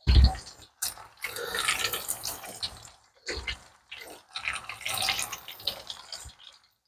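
Floured chicken pieces sizzling and crackling as they are dropped one after another into hot deep-frying oil, in two long stretches with short gaps. A short dull thump comes right at the start.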